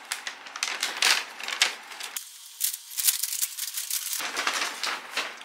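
Paper takeaway bag rustling and crackling as hands open it and rummage inside, in a dense run of irregular crinkles.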